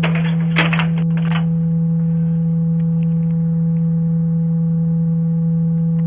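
A loud, steady low hum like a pure tone, unchanging throughout, with a few crackles and rustles in the first second and a half.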